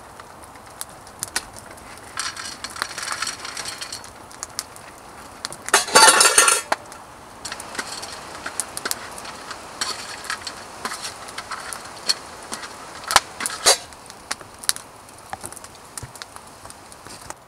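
A packet rustling, then dry dog kibble poured onto a metal camp plate in one loud rattle about six seconds in, followed by a metal spoon clinking and scraping on the plate as the kibble is stirred into leftover stew.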